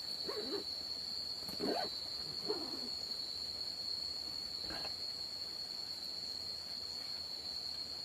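A steady, high-pitched insect drone, typical of crickets, runs throughout. Four short animal calls come over it in the first five seconds, the second of them the loudest.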